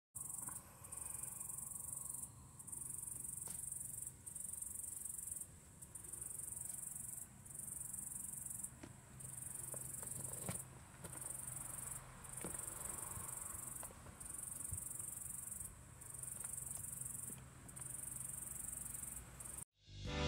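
Insects trilling, a high-pitched trill repeated in bursts of about a second and a half with short breaks, over a faint low hum and a few light taps. Just before the end it stops and lively music begins.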